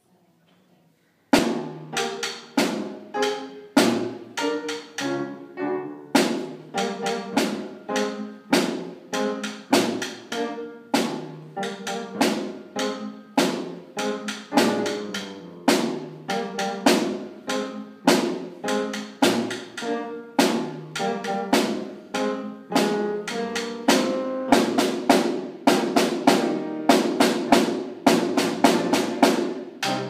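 Solo snare drum played with sticks, starting about a second and a half in: sharp accented strokes and quick figures, with denser roll-like passages near the end.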